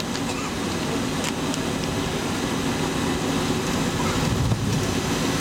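Steady engine rumble and airflow hiss inside the cabin of a Boeing 707-300 taxiing, with a short low thump about four and a half seconds in.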